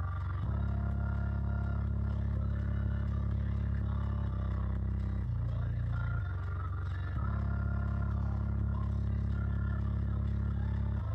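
Bare Daewoo subwoofer driver playing deep, sustained bass notes at high cone excursion, the notes shifting in pitch in steps every second or so in the middle of the stretch and holding longer on either side, with fainter higher tones of the song above.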